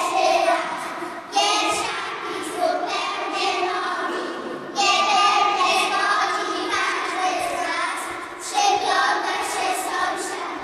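A group of young children singing together in unison, in phrases with short breaks between.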